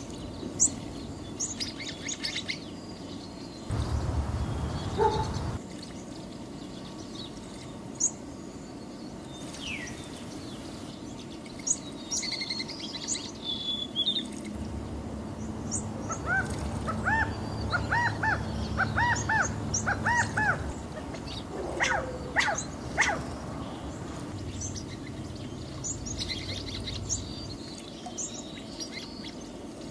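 Caged quails chirping, with short high chirps throughout and a run of repeated arched calls about halfway through. A low hum comes in briefly a few seconds in, and again for much of the second half.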